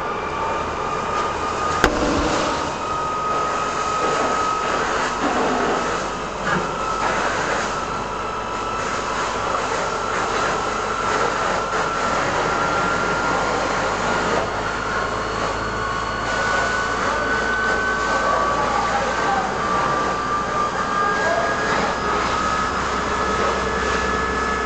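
Steady mechanical drone with a thin high whine that slowly rises in pitch, typical of a fire engine's pump driving a hose onto a burning truck, with water spray hissing. One sharp click about two seconds in.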